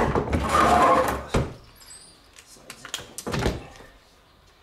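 Scraping and handling noise followed by two thuds as a heavy deep-cycle marine battery is worked into its compartment in the boat. The first thud comes about a second and a half in, the second about three and a half seconds in, and then it goes quiet.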